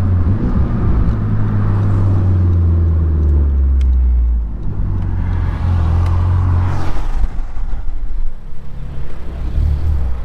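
A car engine running with a deep, steady note. The note shifts about four and a half seconds in and swells louder around seven seconds in.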